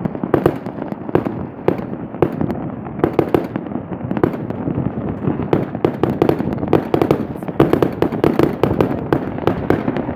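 Fireworks and firecrackers going off in many places across a city: a dense, irregular run of bangs and crackles, several a second and often overlapping.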